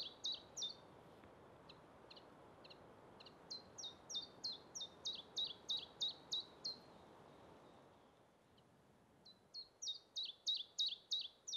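Common chiffchaff singing its 'chiff-chaff' song: runs of evenly spaced high notes, alternating up and down in pitch at about three a second. One phrase ends at the very start, a few fainter single notes follow, then a full phrase of about three seconds, and another phrase begins about two seconds before the end.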